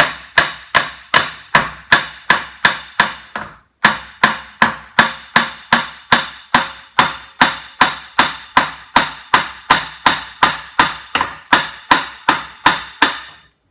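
Rapid, steady hammer blows, about three a second, knocking a stuck, loosened part off a 17.5 hp Briggs & Stratton engine during teardown, each strike with a short ring after it. The blows break off briefly just under four seconds in, then carry on until near the end.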